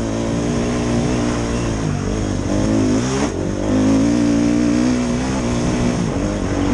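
Dirt bike engine running under way on the trail, its revs dipping and climbing again a couple of times as the rider rolls off and back on the throttle.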